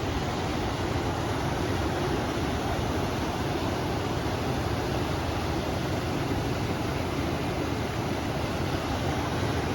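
River water rushing and wind blowing over it, a steady even noise without breaks.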